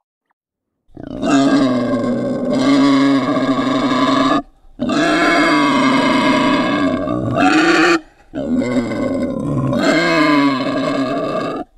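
A boar giving three long, loud calls with a wavering pitch, each about three seconds long, starting about a second in with short breaks between them.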